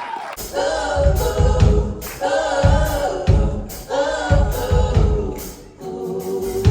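A band playing a gospel-style song: several voices singing together over a low, pulsing drum and bass beat.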